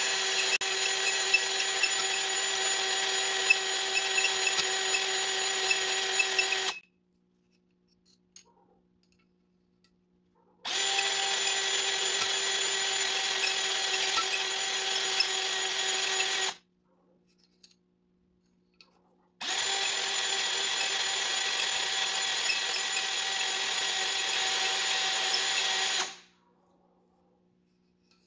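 Electric drill spinning a spring-loaded stone cylinder hone in the oiled cylinder bore of a Sea-Doo Spark engine block, with the motor running at a steady speed. It runs in three bursts of about six seconds each, stopping about a quarter of the way in and again near the end, with short pauses between bursts.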